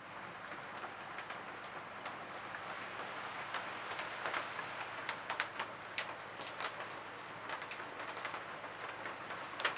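Steady rain falling, with many separate drops heard as sharp taps throughout.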